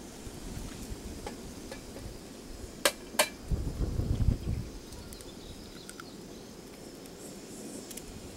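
An egg knocked twice against the rim of a small nonstick camping frying pan to crack it, two sharp taps about three seconds in. A brief low rumble follows for about a second.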